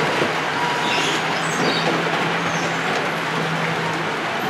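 Gauge 0 model freight train running along the layout track: a steady rolling noise of wheels on rail, with a low steady hum through most of it.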